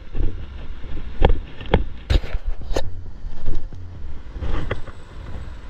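Wind rumbling on the camera microphone, with a few sharp knocks between about one and three seconds in.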